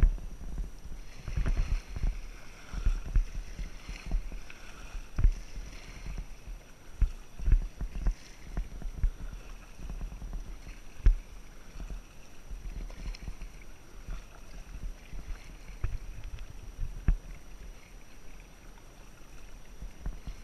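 Kayak paddling: double-bladed paddle strokes splashing and dripping in the water, with irregular low thumps and clicks from the paddle and the plastic kayak hull.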